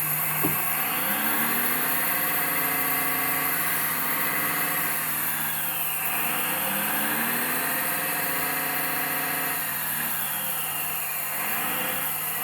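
1/14 scale RC hydraulic excavator working its boom under load: a steady hydraulic pump hum, with a motor sound that rises and falls in pitch twice as the boom strains to lift the machine. There is a single click about half a second in.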